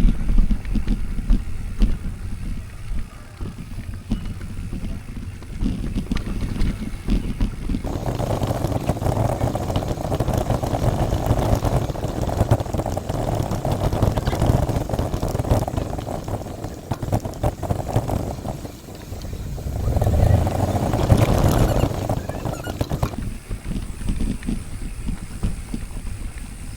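Wind buffeting the microphone and tyre rumble during a mountain-bike ride. The noise grows louder and hissier about eight seconds in, then drops back near the end.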